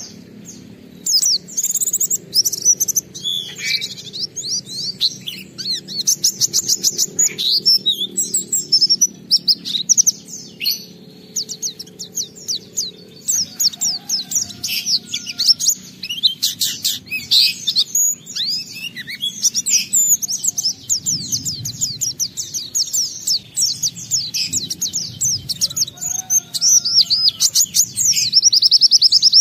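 White-eye (pleci) singing a fast, near-continuous high-pitched twittering song of rapid chirps and trills, a 'gacor' bird pouring out its mimicked phrases (isian).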